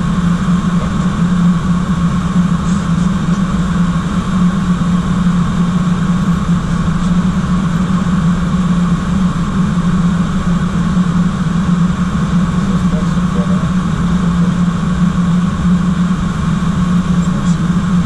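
Steady airliner cockpit noise in flight: airflow and engine drone, with a strong low hum and a fainter steady high tone.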